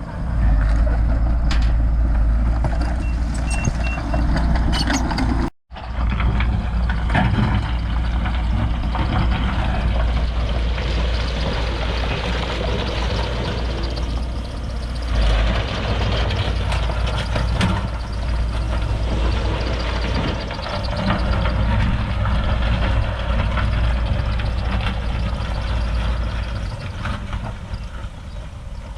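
Heavy diesel construction machinery running steadily under load, with a deep engine drone and clattering mechanical noise. A few short high beeps sound about three seconds in, and the sound cuts out for an instant about five and a half seconds in.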